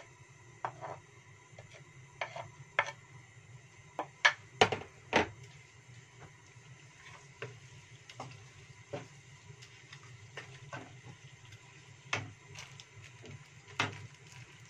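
Wooden spatula scraping and tapping against a nonstick wok while stirring raw ground spice paste in oil, in irregular knocks, with a cluster of the loudest ones about four to five seconds in.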